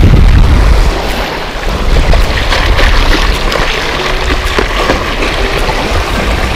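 Wind rumbling on the microphone, easing about a second in, over waves washing against breakwater rocks. Scattered plastic clicks from a tackle box of lures being opened and handled.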